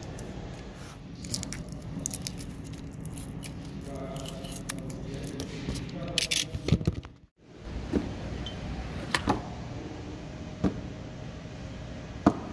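Handling sounds of a snap-off utility knife cutting and peeling masking tape off painted metal skateboard truck parts: small clicks, scrapes and a few scratchy tearing strokes. After a brief drop-out just past the middle, a few light knocks as metal trucks and baseplates are set down on a rubber mat, over a steady low hum.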